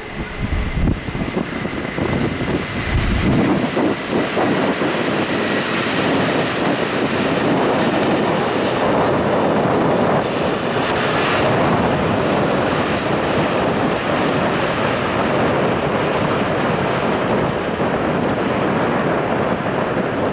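Jet aircraft engines running, a loud steady rush of engine noise that builds over the first few seconds and then holds. Low wind buffeting on the microphone in the first few seconds.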